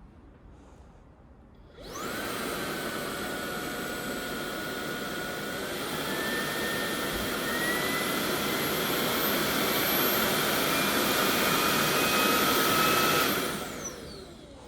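Makita 18 V cordless vacuum cleaner switched on about two seconds in and running with a high motor whine. The pitch steps up a few times, then the motor is switched off near the end and its whine falls away as it spins down.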